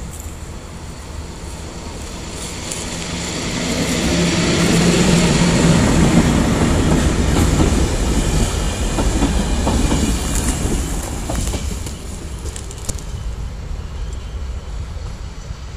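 An electric passenger train, a locomotive hauling coaches, approaches and passes close by. It builds to a loud rush with a steady low hum as the locomotive goes past, then the coaches' wheels clatter over the rail joints. The sound eases off as the train moves away.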